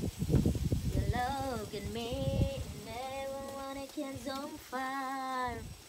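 A woman singing a slow melody with long held, wavering notes. A low rumble of wind on the microphone runs under the first couple of seconds.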